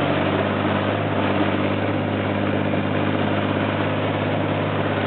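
Armoured tank's engine running steadily at a constant pitch, heard from riding on the hull, with a noisy rush of the moving vehicle over it.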